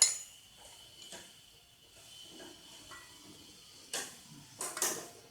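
A wrench turning long bolts down to compress a tractor clutch's pressure-plate springs: a sharp metallic click at the start, light ticks with a faint metal ring, then a couple of clanks of tool on metal about four and five seconds in.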